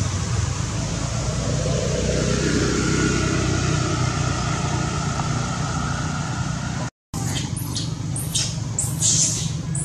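A steady outdoor rumble and hiss, then, after a brief cut about seven seconds in, a quick run of short, high-pitched squeals from macaques chasing one another.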